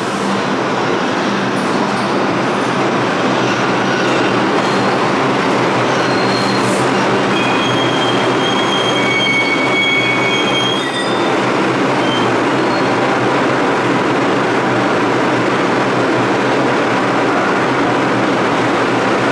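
Bombardier R142 subway train pulling out and running into the tunnel: a steady, loud rumble, with thin, high wheel squeals from about seven to eleven seconds in.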